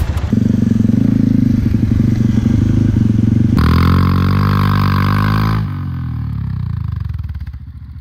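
Motorcycle engine running steadily. From about three and a half seconds in it revs hard while the rear wheel spins in wet grass and mud, then it drops back and fades near the end.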